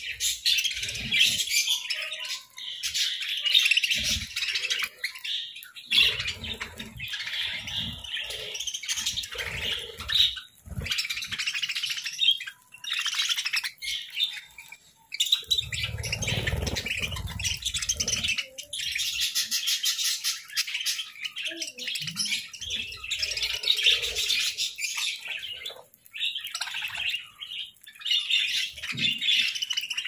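Several pet budgerigars chirping and chattering without a break, with a few low thumps among the calls, the longest about sixteen seconds in.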